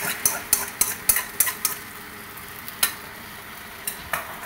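Beaten egg batter sizzling as it is poured into hot coconut oil in a flat pan, with a quick run of sharp clicks and taps in the first two seconds and a few more near the end.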